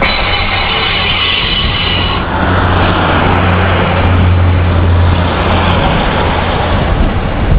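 Class 156 Sprinter diesel multiple unit running past close by, its underfloor diesel engines droning steadily, loudest about four to five seconds in. A high whine runs over the drone and stops about two seconds in.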